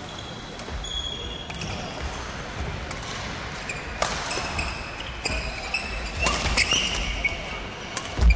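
Badminton play on an indoor court: sneakers squeaking on the floor and sharp racket hits on the shuttlecock, scattered through.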